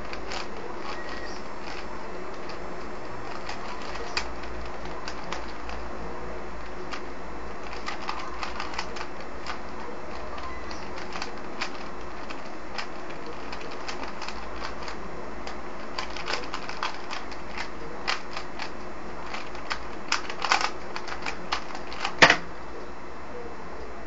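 Plastic 3x3 Rubik's cube being turned rapidly during a speedsolve: a stream of irregular clicks as the layers snap round, over a steady hiss. The clicks grow busier in the last few seconds, and one louder clack comes near the end.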